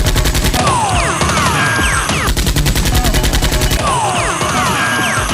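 Rapid automatic gunfire sound effects in two bursts, one at the start and another from about two to four seconds in, with quick falling whistling tones in between and after.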